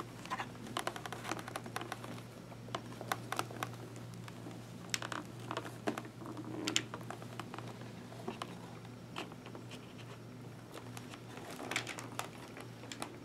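Hands working in a motorcycle helmet's padded liner: irregular light clicks and taps of plastic parts and snaps, with fabric rustling.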